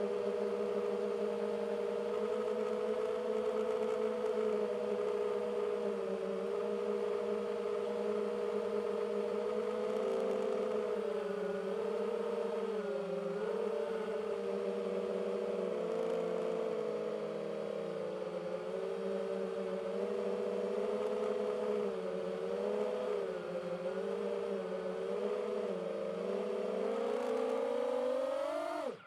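DJI FPV drone's motors and propellers whining steadily, the pitch wavering up and down with the throttle. The pitch rises near the end, then the sound cuts off suddenly.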